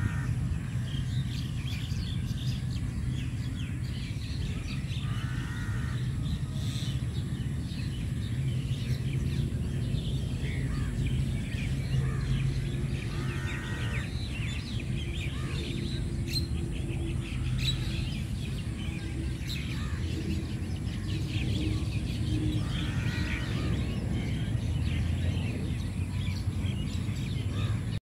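Mixed outdoor birdsong: many small birds chirping throughout, with a louder ringing call repeated three times about eight to nine seconds apart, over a steady low rumble.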